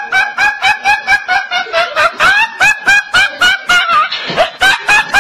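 A teenage boy laughing hard: a rapid, even string of short, high-pitched bursts, about four a second, each rising and falling in pitch.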